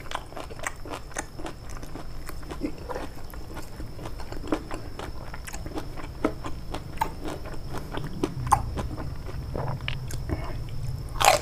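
Close-up chewing of boiled papaya stems in peanut sauce: wet mouth clicks and soft crunches in quick, irregular succession, with a brief louder rising sound near the end.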